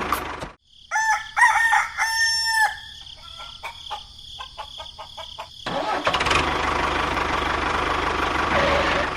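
A rooster crowing about a second in, followed by a string of clicks. Then, just past halfway, an engine starts and runs steadily.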